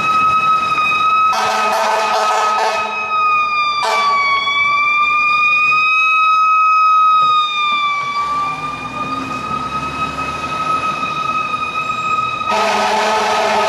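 FDNY fire engine's mechanical Q siren held at a high steady wail, its pitch sagging slightly twice. Air horn blasts sound over it about a second in, briefly near four seconds, and again near the end.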